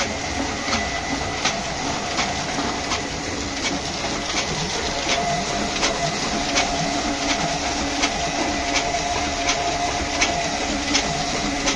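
Single-colour sheet-fed offset printing press running, printing sheets, with a sharp click about every three-quarters of a second on each cycle over a steady mechanical hum.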